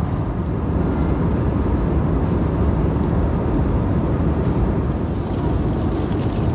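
Airbus A320-200 cabin noise in flight: the steady, deep drone of the engines and airflow, heard from a passenger seat.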